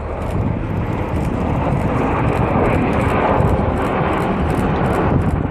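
Jet engine noise from Red Arrows BAE Hawk jets flying their display, a broad rushing sound that swells gradually as the jets draw nearer.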